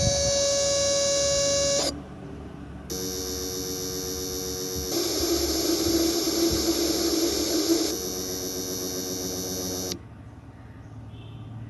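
A compressor running with a steady whine. It cuts out just before two seconds in, restarts about a second later at a different pitch, grows louder for a few seconds, then stops near the end. This whine is the noise complained of as the compressor's problem.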